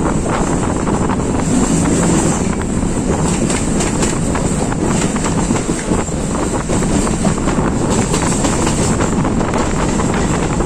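Train running along the track, a steady loud rumble with irregular rattles and knocks, with wind buffeting the microphone.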